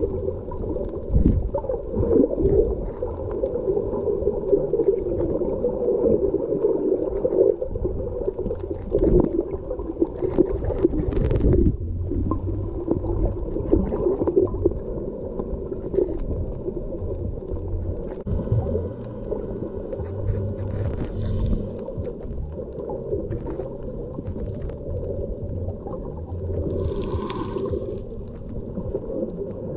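Muffled underwater sound picked up by an action camera in a waterproof housing: a steady low gurgling and sloshing of water, with scattered knocks, and a brief higher-pitched sound near the end.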